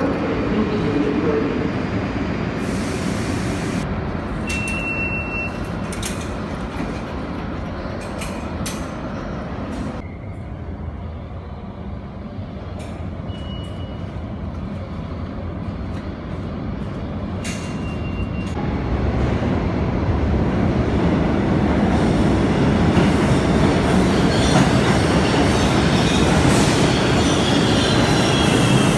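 New York City subway train pulling into the station: a low rumble that grows louder from about two-thirds of the way in, with wheels squealing on the rails near the end. Before that there is platform noise with a few clicks.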